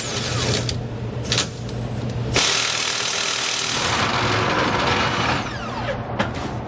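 Impact wrench hammering a frame bolt loose: a short burst about a second in, then a run of about three seconds, and a few sharp clicks near the end.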